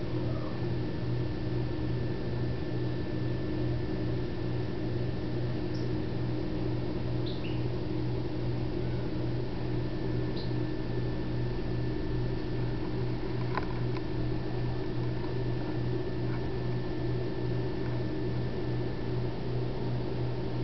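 Steady low electrical hum of running aquarium equipment, with a few faint, short high chirps now and then.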